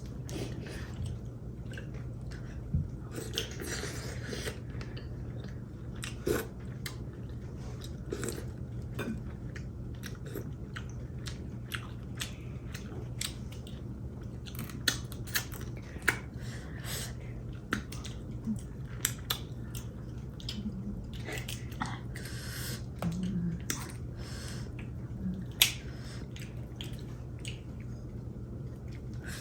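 People eating seafood boil: chewing, with scattered sharp clicks and cracks from shellfish shells being handled and broken, over a steady low hum.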